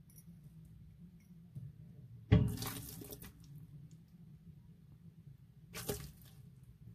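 Pixie frog (African bullfrog) lunging at king worms in damp soil: two sudden wet smacks, a loud one about two seconds in and a shorter one near the end.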